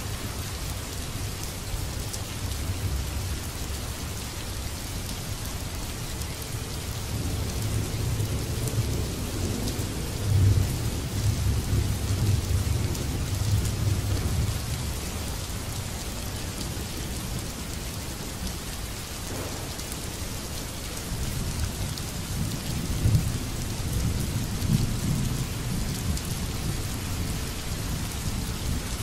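Steady rain hissing on a wet surface, with low rolls of thunder: one builds about a quarter of the way in and another comes past two-thirds of the way through.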